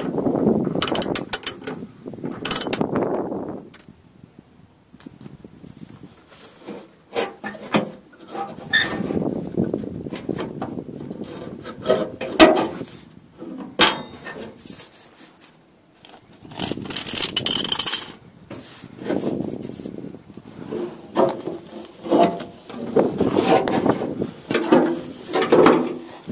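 Socket ratchet on a long extension working bolts, the pawl clicking in irregular bouts, with scraping and sharp knocks in between.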